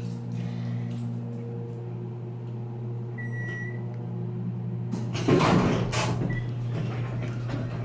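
Steady electrical hum of an elevator, a short high beep about three seconds in, then the elevator doors sliding open with a loud rattle about five seconds in.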